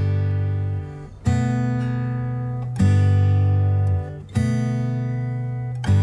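Background music: acoustic guitar strumming chords, a new chord struck about every second and a half and left to ring.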